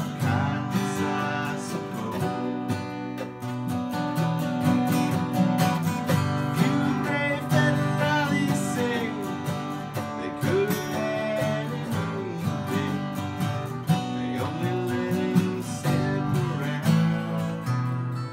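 Acoustic guitars strummed and picked together in a steady country-style groove. Over the rhythm runs a melody line that slides and bends between notes.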